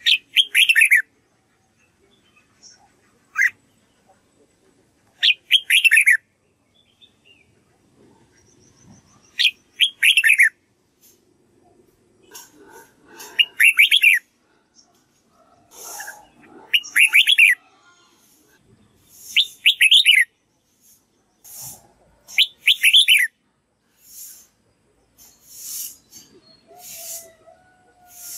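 Red-whiskered bulbul singing: about seven short phrases of quick, falling whistled notes, each about a second long, coming every few seconds.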